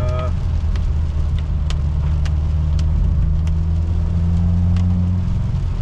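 Subaru WRX turbocharged flat-four engine and road noise as the car drives at steady speed, with a few faint sharp ticks scattered through it. The engine is running on a suspect ignition coil that the driver decides still needs replacing.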